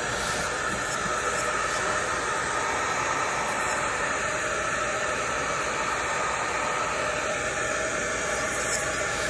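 Handheld hair dryer blowing steadily on an action figure's plastic: a constant, unchanging hiss of fan and rushing air.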